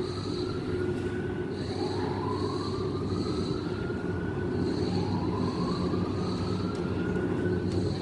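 Ship's alarm sounding: a whooping tone that rises slowly over about three seconds and starts again, with a high pulsed beeping on top, over the steady rumble of cement-loading machinery.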